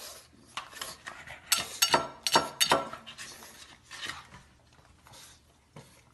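A pug's paws and claws knocking and scrabbling on a wooden tabletop: a quick run of sharp taps, most of them in the first three seconds, then a few fainter ones.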